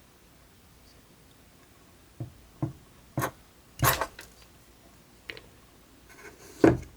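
A handful of short, irregular knocks and clacks, six in all, spread over a few seconds, the last one the loudest.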